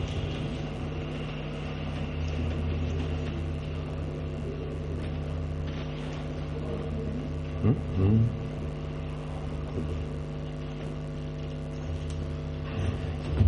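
Steady electrical hum and low rumble from the hall's sound system. Two brief thumps come a little past the middle.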